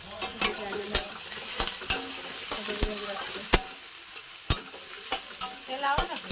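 Onions frying in hot oil in a cooking pan, sizzling steadily, while a metal spoon stirs them and knocks sharply against the pan about ten times at irregular intervals.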